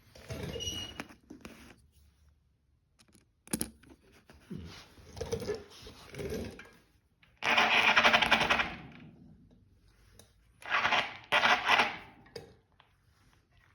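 Studs being fitted into a studded mountain-bike winter tire with a tool: several bursts of rapid mechanical rattling, the loudest about halfway through, with a sharp click a few seconds in.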